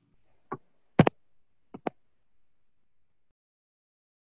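A few short, sharp clicks and knocks: one about half a second in, a louder knock about a second in, and a quick pair of clicks just under two seconds in.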